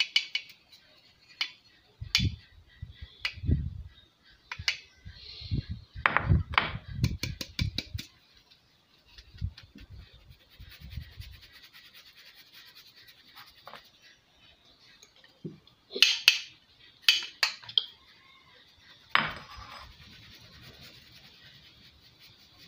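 Flour being sifted through a stainless steel sieve over a plastic bowl: the sieve is shaken and knocked, giving scraping, light clicks and dull thumps in the first few seconds, then a soft steady rasp of the mesh, with a few sharp metal clatters about two-thirds of the way in.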